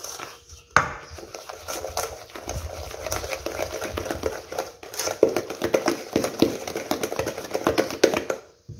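Wooden spoon beating thick chocolate cake batter in a stainless steel bowl: quick, rhythmic scraping and knocking of the spoon against the metal, with a sharper knock about a second in.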